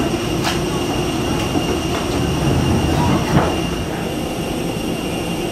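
Steady machinery rumble of a parked airliner and its ground equipment, heard from the jet bridge, with a constant high whine over it. A brief knock sounds about three and a half seconds in.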